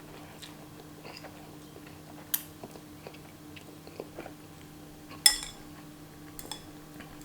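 A person chewing a mouthful of spicy instant noodles, with small scattered clicks and two sharp clinks of a utensil against the bowl, the louder one about five seconds in.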